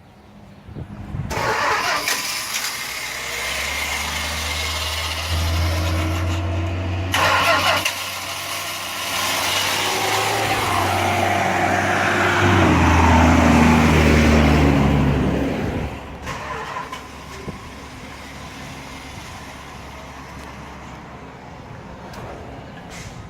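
A motor vehicle engine running loudly for about fifteen seconds, with a sweep in pitch in the middle, then cutting off sharply.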